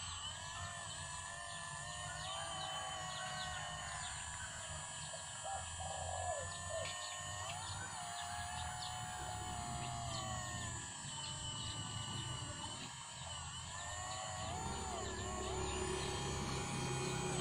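The electric hydraulic pump and motors of an RC Kobelco SK200 excavator model whine while the boom and bucket dig, the pitch wavering up and down with the load. Birds chirp throughout.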